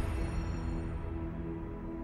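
Background music: sustained low, dark tones with a deep drone, slowly fading.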